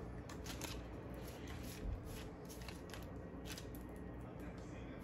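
Wax paper rustling and crinkling softly as ground chicken is laid on it and rolled by hand, with scattered light clicks and a soft thump about two seconds in.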